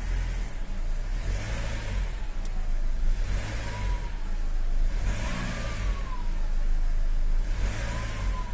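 Nissan X-Trail 2.0 dCi four-cylinder turbodiesel revved four times in short blips from idle, each rise bringing a turbocharger whine that climbs and falls with the revs. The turbo whine seems oddly strong to the mechanic.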